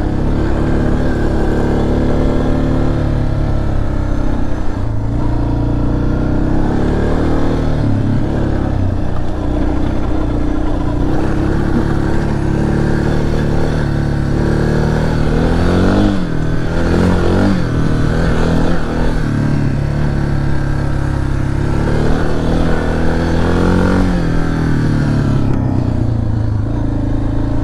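Suzuki DR650's single-cylinder four-stroke engine running under way, its pitch rising and falling several times as the throttle opens and closes and gears change, over a steady rush of wind noise.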